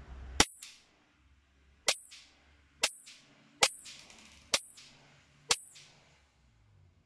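Six sharp shots from a KWC Sig Sauer P226 CO2 air pistol, each cutting off quickly with a short ring. The first shot is the loudest. The shots come about one a second after a longer pause following the first.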